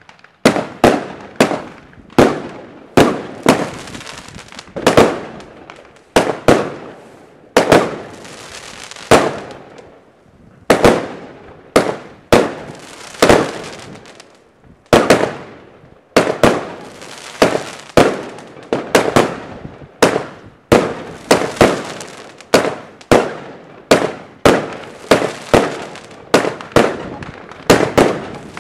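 Bonfireworks 'Weeping Willow' firework cake firing shot after shot, one or two sharp bangs a second, with a fizzing hiss from the bursting gold stars between the bangs.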